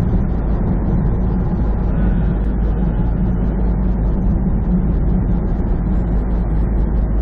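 Steady drone of a semi truck's diesel engine with tyre and road noise, heard inside the cab while driving.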